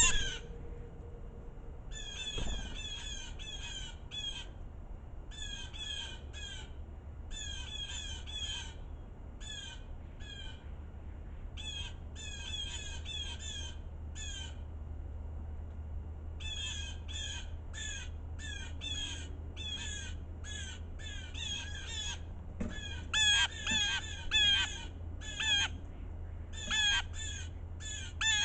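Blue jays scolding: harsh, raspy jay calls given in quick series of three to six, bout after bout, several birds calling at once near the end.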